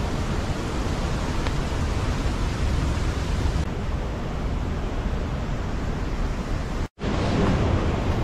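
Steady rush of a fast-flowing mountain stream, broken for an instant about seven seconds in.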